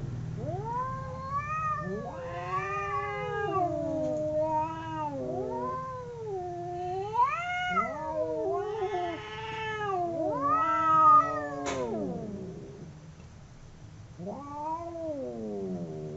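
Two domestic cats caterwauling at each other in a fight standoff: long yowls that rise and fall in pitch, sometimes overlapping. The yowling pauses briefly about three quarters of the way through, then one more yowl follows.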